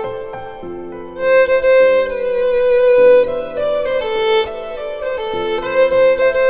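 Instrumental background music: a sustained melody over chords that change about once a second, growing louder about a second in.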